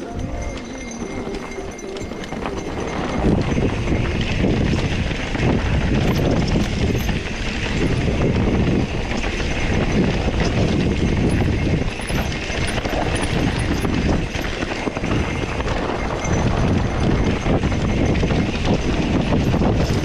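Mountain bike rolling over a rocky dirt trail: tyres crunching on gravel and stones, with the bike rattling and knocking over the bumps, louder from about three seconds in.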